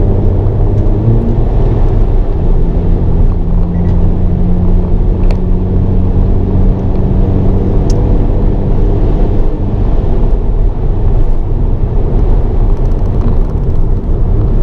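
Hyundai Avante N's 2.0-litre turbocharged four-cylinder engine running steadily at track speed, heard from inside the cabin over tyre and road noise.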